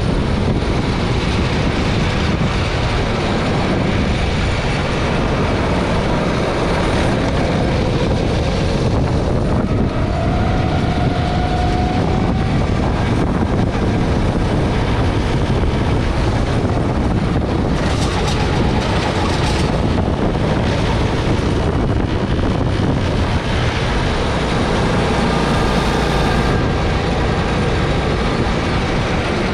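Go-kart engine running at racing speed, heard from on board the kart, a steady dense drone whose pitch rises and falls gently as the driver accelerates and lifts through corners.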